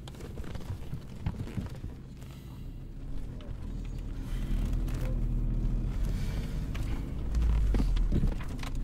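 Car engine and road rumble heard from inside the cabin, a steady low hum that grows louder about three seconds in.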